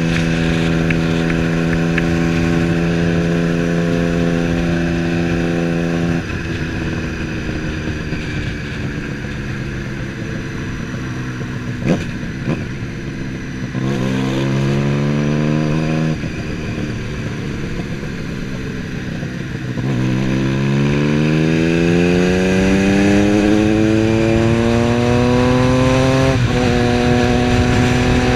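Triumph Street Triple's 675 cc inline-three engine on the move: steady at first, dropping in pitch about six seconds in, then climbing in pitch twice under acceleration with a gear change between, and shifting again near the end. A single sharp click is heard about halfway through.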